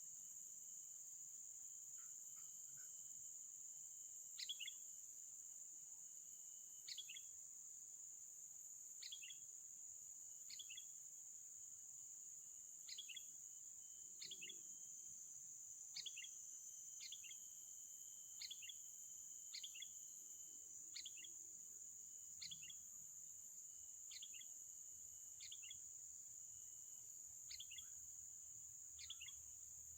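A bird's short, sharp call that drops in pitch, repeated every one to two seconds from about four seconds in, over a steady high-pitched drone of insects.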